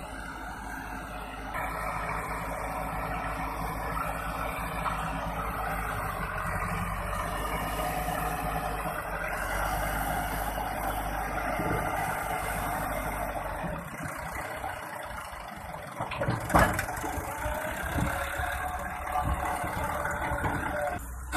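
Massey Ferguson 385 tractor's four-cylinder diesel engine running steadily under load as its hydraulics tip the loaded trailer to dump soil. A single sharp knock comes about two-thirds of the way through.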